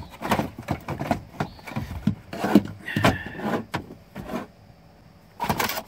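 Plastic instrument cluster of a 1997 Ford F-series truck being wiggled and worked out of the dash: irregular clicks, knocks and plastic scraping on plastic, with a louder rattle near the end.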